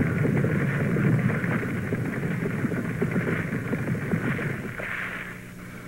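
Steady crackling, rumbling background noise, with a low hum coming in near the end.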